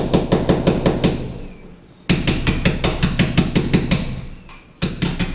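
Rapid light hammer taps on a chisel, about six a second, chipping cement mortar out of the joint around a glass block between drilled holes. The tapping comes in three runs: one trails off about a second in, a new run starts about two seconds in and fades, and another begins near the end.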